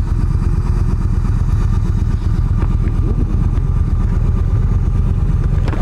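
Yamaha V-Star 1300's V-twin engine idling steadily while the bike is stopped.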